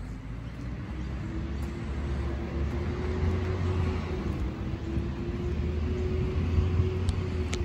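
A vehicle approaching: a steady whine that rises in pitch at the start and then holds, over a low rumble that grows louder throughout.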